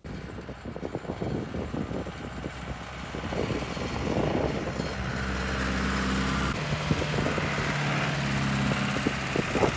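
Farm tractor with a front loader, its engine running steadily as it drives, growing louder over the first few seconds as it nears.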